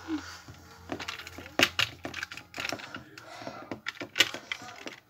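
Irregular clicks and knocks of a toy model bus and small objects being handled and moved on a wooden desk, a few of them sharp and loud, over a low hum that fades out about two seconds in.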